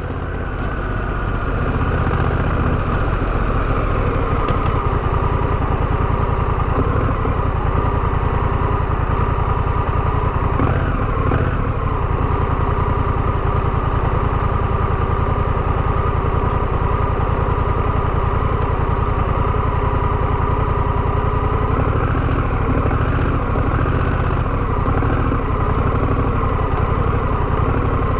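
Honda Rebel 1100's parallel-twin engine running steadily, fading in over the first two seconds.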